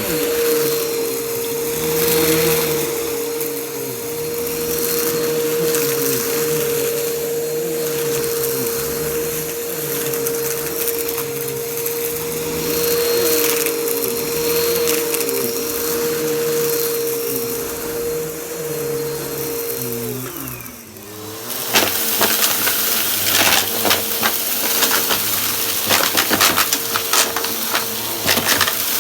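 Vacuum cleaner running with a steady motor whine. About two-thirds of the way through, the motor winds down with falling pitch, then starts again a second later. It then brings a dense run of crackles, crunchy debris being sucked up.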